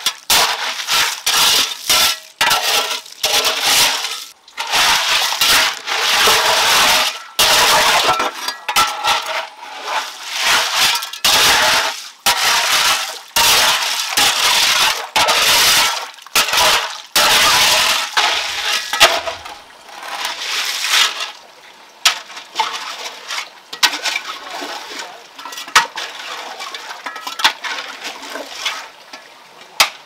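Bamboo being chopped and split: a fast run of sharp cracks and knocks, some with a short hollow ring, thinning out after about 19 seconds into scattered clicks.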